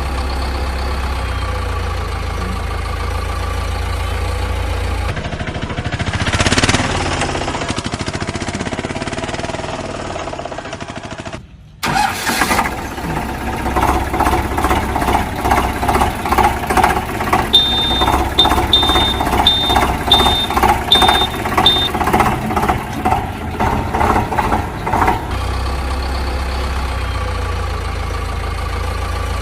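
Engine sounds: a steady low engine hum breaks off suddenly and restarts as a faster rhythmic chugging, with a run of six short high beeps in the middle, then settles back into a steady hum.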